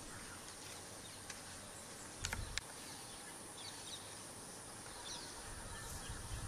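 Faint wild outdoor ambience: a steady high insect drone with a few faint bird chirps. A brief low thump with clicks comes about two seconds in.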